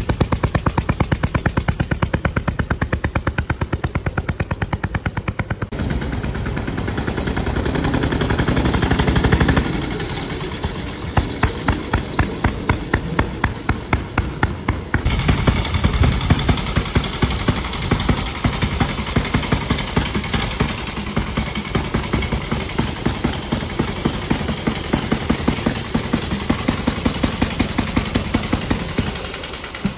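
1926 Norton Big 4 motorcycle's single-cylinder side-valve engine running, a rapid even exhaust beat with each firing stroke distinct. After about ten seconds the beat slows and loosens, with some strokes louder than others, and the sound changes abruptly twice.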